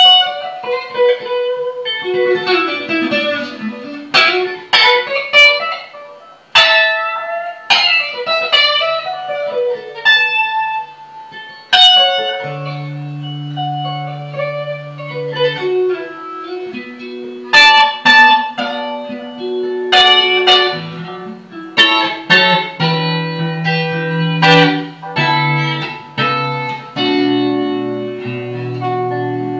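Clean electric guitar, a 1994 Fender American Vintage '62 reissue played through a Fender Bassman amplifier: picked single notes and chords ring out, with lower held notes joining in from about the middle.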